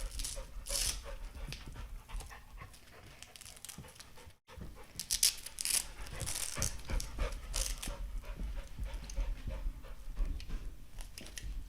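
Pit bull panting. There is a brief dropout about four seconds in.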